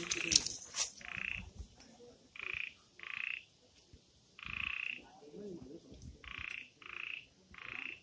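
A frog calling over and over: seven short calls of under half a second each, at uneven intervals. A few sharp knocks of handling come in the first second, and a faint steady high hiss runs underneath.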